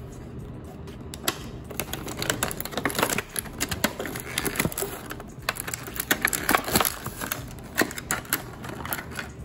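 Clear plastic blister packaging crinkling and crackling as a toy figure is worked out of it by hand: a quick, irregular run of sharp clicks and crackles starting about a second in.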